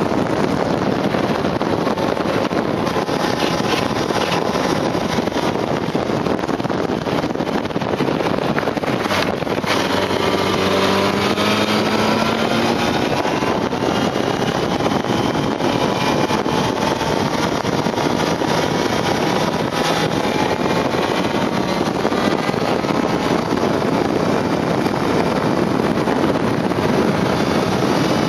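Wind rushing over the microphone of a moving motorcycle, with the motorcycle's engine heard faintly underneath, its note rising in pitch now and then as it accelerates.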